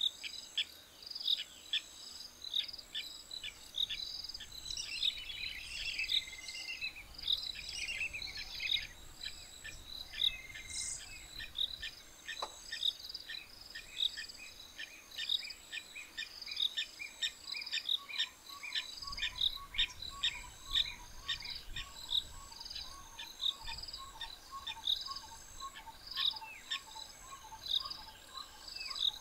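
African bush ambience: insects chirping in a steady, evenly repeating pattern with birds calling over it, including a bird's trilling song about five seconds in. A lower, rapidly repeated call joins about two-thirds of the way through.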